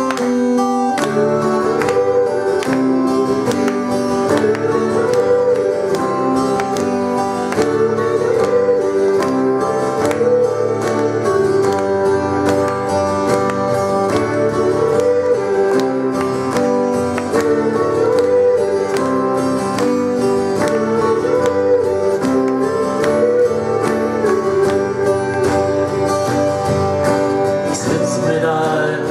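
Live band playing an instrumental passage: guitars over a steady drum beat.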